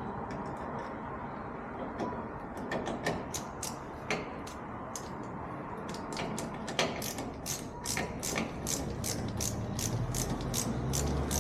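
Ratcheting hand screwdriver turning a flush-bolt screw: a run of sharp ratchet clicks that starts a couple of seconds in and settles into an even two or three clicks a second.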